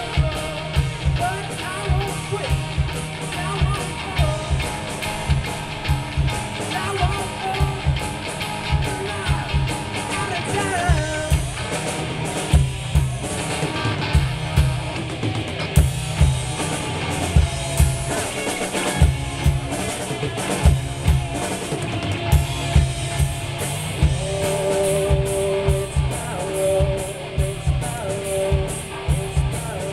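Live rock band playing through a stage PA: a drum kit keeps a steady beat under electric guitars and bass, with a singer on the microphone. The cymbal hits grow busier over the last few seconds.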